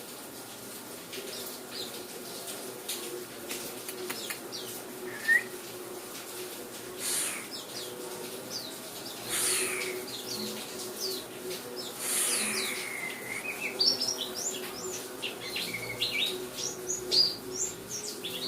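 A pet white-eye (pleci) chirping: short high chirps, scattered at first and coming thick and fast in the second half, over a faint steady hum.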